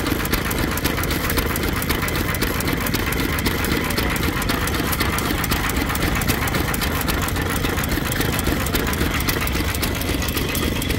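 Antique stationary engine running steadily, a continuous stream of rapid, even knocks.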